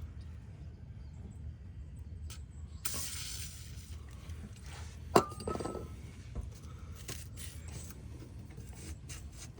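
A short hiss of aerosol lubricant spray about three seconds in. Then, about two seconds later, a single sharp metallic clink that rings briefly. Faint handling and scraping noises come in between.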